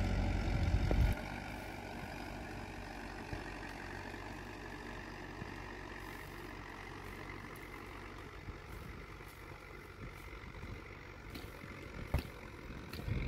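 Small farm tractor's engine running steadily under load as it pulls a single-furrow plough, slowly fading as it draws away. A few sharp clicks near the end.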